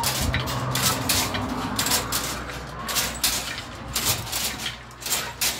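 Irregular wooden clacking of narrow-strip kente looms being worked, about three or four knocks a second from beaters and heddles.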